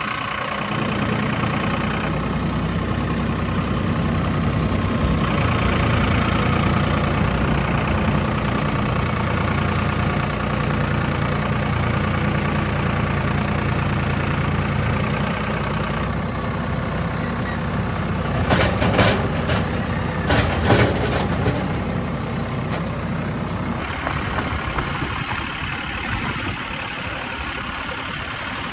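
A motor engine running steadily, with a few sharp knocks about two-thirds of the way through. It gets a little quieter near the end.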